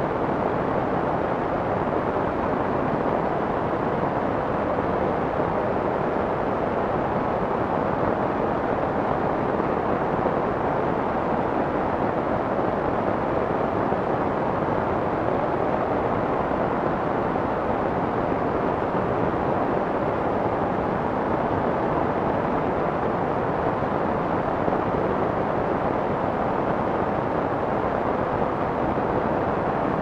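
Steady, soft white noise: a smooth, even hiss with little treble and no separate drops or clicks.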